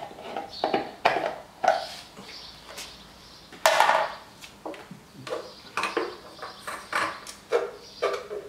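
Scattered knocks, clicks and clatter of hard items being handled in an engine bay while topping up engine oil, with one sharper clack about four seconds in.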